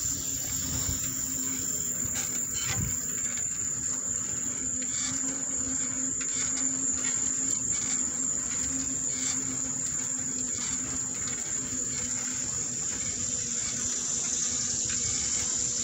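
Bicycle rolling along asphalt: a steady rush of tyre and wind noise with a few faint rattles, under a continuous high-pitched whine.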